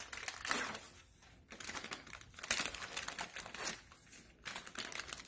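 Plastic bag of shredded cheese crinkling in irregular rustles as it is pulled open and handled.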